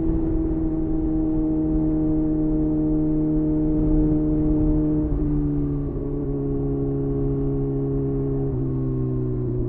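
2023 Kawasaki ZX6R's inline-four engine running through a LeoVince LV10 carbon-fibre slip-on exhaust, held at a steady engine speed. Its pitch dips slightly about halfway and again near the end.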